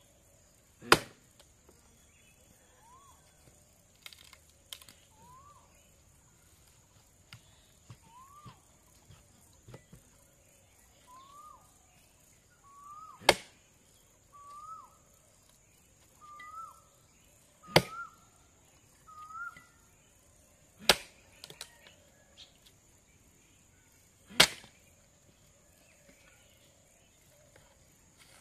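Axe blows splitting firewood: five sharp, loud strikes a few seconds apart, with fainter knocks in between.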